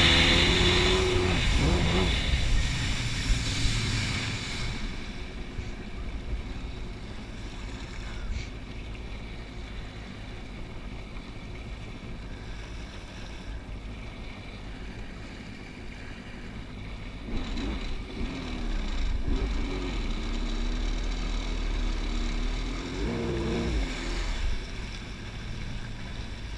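Wave runner (personal watercraft) engine running at speed, then easing off within the first few seconds to a low, steady running level with water and wind rumble. About two-thirds through, the engine is throttled up and down again for several seconds.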